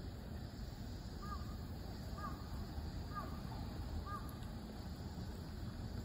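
A crow cawing four times, about once a second, over a steady low background rumble.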